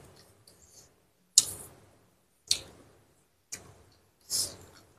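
A person chewing food close to the microphone, with a few sharp wet mouth smacks about a second apart.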